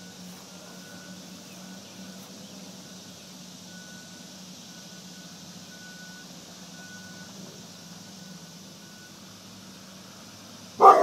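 A Labrador Retriever gives one loud bark near the end. Before it there is only a faint steady background hum with faint high beeps repeating in it.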